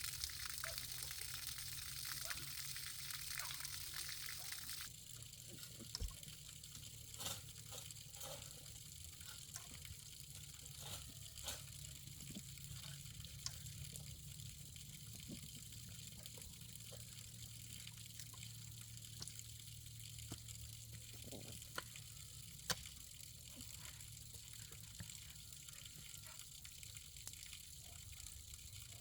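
Water gushing for about five seconds, then cutting off sharply. A quieter stretch follows, with scattered light knocks and clicks.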